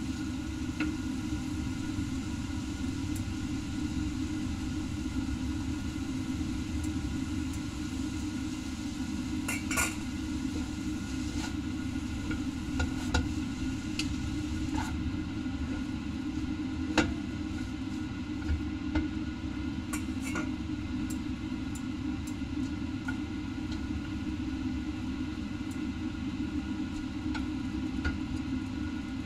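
Wooden chopsticks and a wooden spatula clicking and knocking against a stainless steel wok as noodles are tossed, a scattered handful of sharp taps. Under them runs a steady low rumble.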